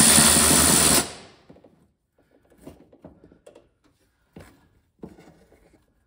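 A handheld power driver backing out a screw, running in one burst of about a second, then stopping abruptly. Faint clicks and knocks follow.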